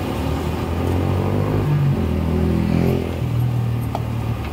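A motor vehicle's engine running close by in street traffic, its pitch rising and falling as it revs near the middle.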